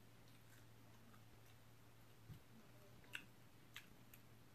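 Near silence: a few faint, short mouth clicks of eating from the fingers and chewing, spread over the second half, over a faint steady low hum.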